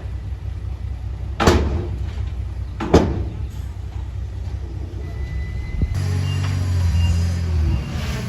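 Diesel engines of earthmoving machinery running steadily, with two sharp clanks about a second and a half apart. Near the end the engine sound changes abruptly to a louder, deeper running.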